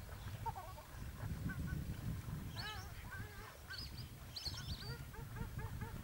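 Ducks calling: a string of short, repeated nasal honks that come faster, about three a second, in the second half, with a few higher whistled notes in the middle.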